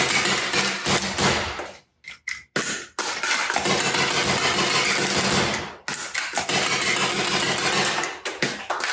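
HPA-powered foam dart blaster (Spectre Supercore pneumatic cylinder driven by an electropneumatic solenoid) firing darts in rapid strings of shots. There are short breaks about two and six seconds in.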